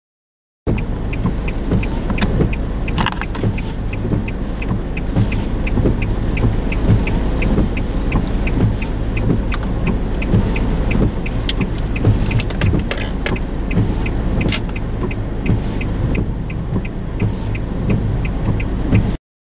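Car driving on a road: a steady low rumble with occasional small knocks, and a faint regular ticking about twice a second. The sound cuts in abruptly about a second in and cuts off abruptly near the end.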